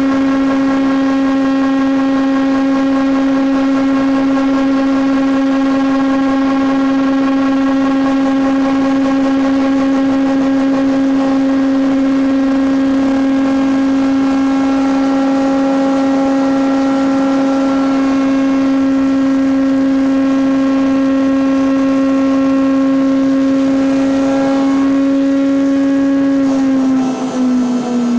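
Four-sided timber moulder running with a loud, steady high hum. Its pitch slides down near the end.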